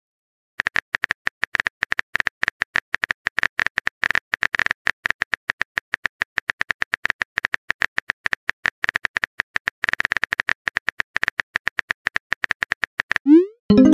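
Simulated phone-keyboard typing sound effect: a long run of rapid, irregular key clicks, stopping just before the end, where a short rising message-sent tone begins.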